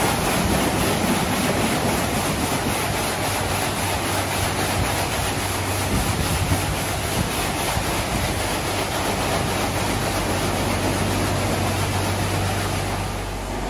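WashTec gantry car wash running over a car: a steady hiss of water jets spraying the bodywork, under a low hum from the machine's pumps and drive. Near the end the hum cuts off and the spraying falls away.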